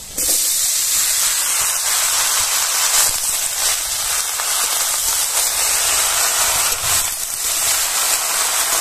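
Cut water lily (shapla) stems, wet from washing, tipped into hot mustard oil in a large aluminium wok and sizzling: a loud steady hiss that starts suddenly, while a spatula stirs them.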